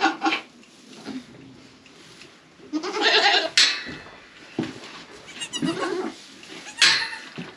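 Goats bleating: one loud bleat about three seconds in and a softer one around six seconds, with a short sharp noise just before the end.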